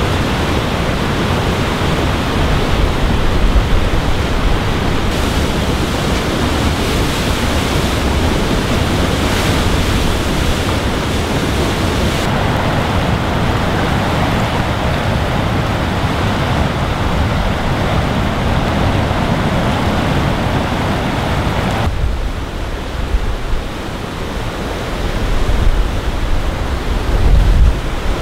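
Mountain river rushing through whitewater rapids: a loud, steady roar of water. Near the end, low rumbles of wind buffet the microphone.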